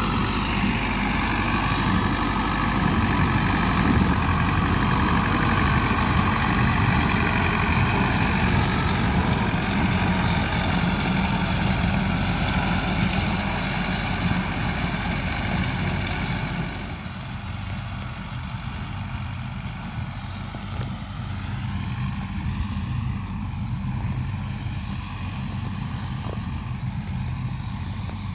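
Farm tractor engine running steadily while mowing grass, its pitch wavering a little. The sound drops suddenly about two-thirds of the way through and continues at a lower level.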